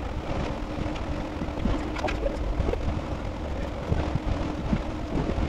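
Steady low rumbling noise with a hiss above it, with a few faint light taps as a metal hard line is fed along the car's underside.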